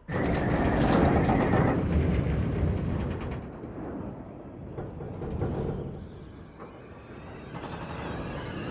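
Film sound effects of a car dropping out of a plane into freefall: a rush of wind mixed with engine noise that starts suddenly and loudly, eases off through the middle, and swells again near the end.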